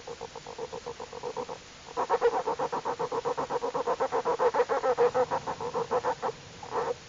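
Newborn bear cubs 'motoring' while nursing: a rapid, evenly pulsing hum that is the normal sound of contented suckling cubs. It breaks off briefly about a second and a half in, returns louder, and ends with a short final burst.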